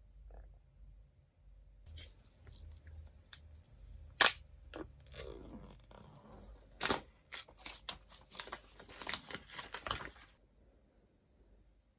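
Unboxing sounds from a phone box's paper and cardboard packaging: crinkling and tearing with a run of sharp clicks and taps. The loudest click comes about four seconds in, and it all stops about ten seconds in.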